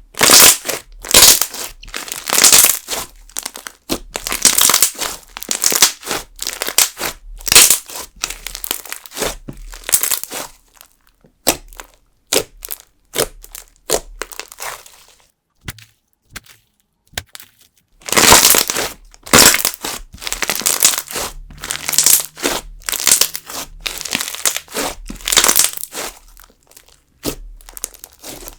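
Jelly slime mixed with sugar beads being squeezed and kneaded in both hands: a run of repeated wet squishes and crackles. It goes quiet for several seconds midway, then starts again.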